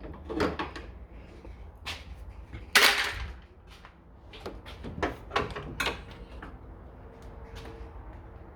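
Tools and car parts being handled: a series of sharp knocks and clicks, with a louder rattling scrape about three seconds in.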